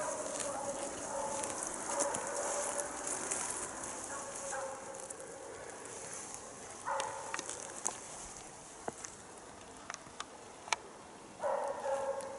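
Jämthund (Swedish elkhound) giving a quick string of barks at bay, the steady bark of a dog holding a moose. The barking fades out in the middle and returns louder near the end. Footsteps snap twigs on the forest floor throughout.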